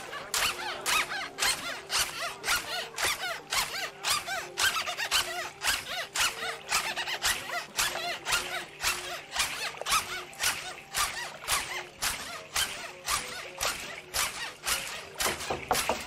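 Sepik River welcome-dance percussion beating a steady rhythm of about three sharp strokes a second, with a faint two-note tune running over it.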